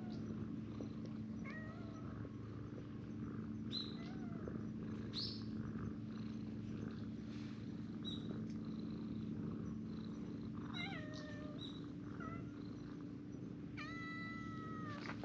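A cat purring steadily while being stroked, with several short high, gliding calls scattered through, the longest near the end.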